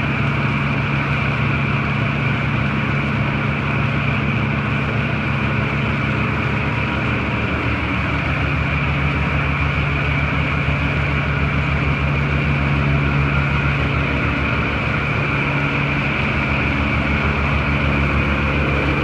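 A large engine running steadily at a constant speed, with a slight shift in its low tones about eight seconds in.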